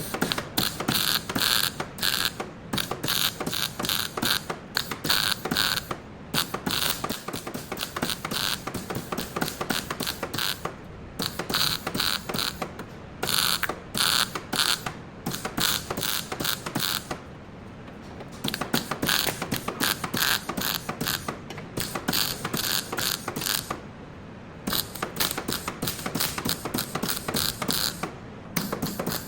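Rapid mechanical clicking in runs of one to two seconds, broken by short pauses, like a ratchet being worked.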